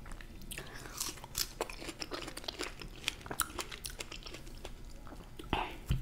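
Close-miked chewing of a chocolate-dipped strawberry: a dense run of small wet clicks and crackles, with a louder smack near the end.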